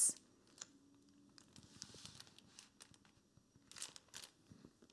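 Faint rustling and crinkling of a hardcover picture book being opened and its pages turned, with two sharper page swishes near the end.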